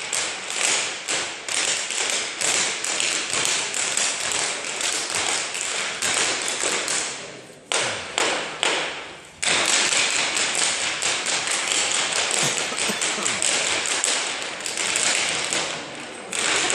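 A group of dancers' hard shoes beating out rapid percussive rhythms on a wooden floor, with no music. About eight seconds in the beating thins to a few separate strikes, then the full, dense rhythm resumes.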